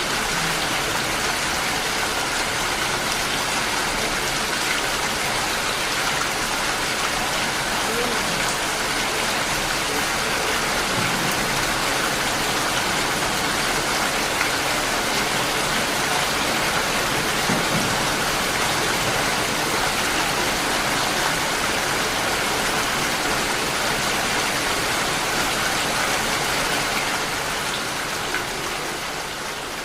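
Steady rain falling, an even hiss of drops striking surfaces, beginning to fade out near the end.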